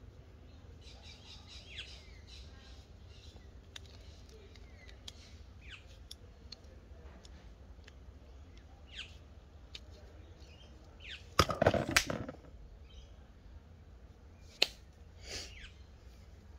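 Small clicks and clatter of a screwdriver and wiring parts being handled on a cardboard box lid, with a louder burst of clatter a little past the middle and a sharp click near the end. Birds chirp faintly in the background, mostly in the first few seconds.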